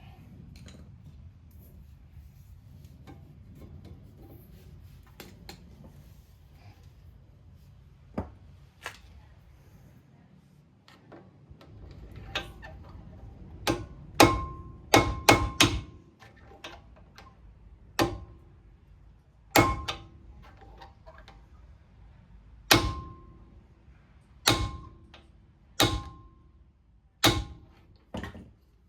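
Hammer striking metal parts of a car's brake caliper during a pad change, each blow with a short metallic ring. Faint handling clicks come first, then about a dozen strikes: a quick run of taps just past halfway, then single blows every second or two.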